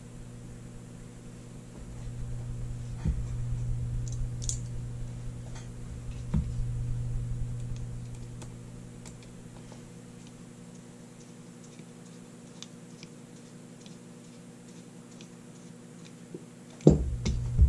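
Scattered small metallic clicks and light taps of an antique Forehand Arms revolver's lockwork parts and a screwdriver being worked into the frame, over a steady low hum.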